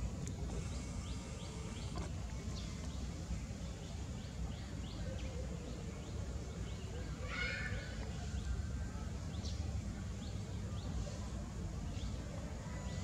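Short, high, downward-sweeping animal chirps repeated throughout over a steady low rumble, with one louder, longer squealing call about seven seconds in.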